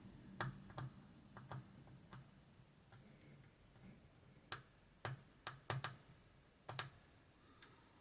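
Light metallic clicks of a lock pick working the pins of an Ikon N1 cylinder lock held under heavy tension, coming singly and then in a quick cluster about halfway through. The picker is trying to set a standard pin that won't set.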